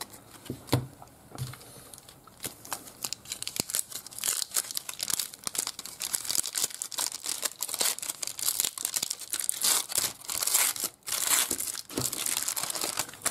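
Foil wrapper of a 1995 Spawn Widevision trading card pack being torn open and crinkled: a dense, continuous crackling and rustling with many sharp clicks, loudest about ten seconds in.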